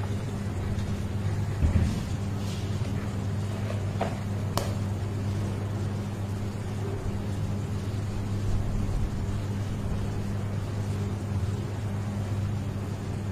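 Steady low hum, as from an electrical appliance, with two light clicks about four seconds in.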